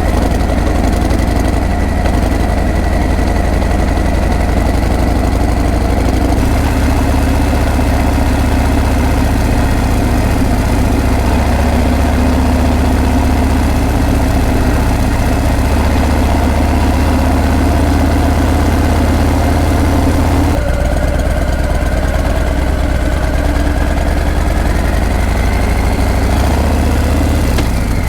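Harley-Davidson Breakout's V-twin exhaust running with a loud, steady low rumble. Its sound changes abruptly about two-thirds through, after which the pitch climbs slowly.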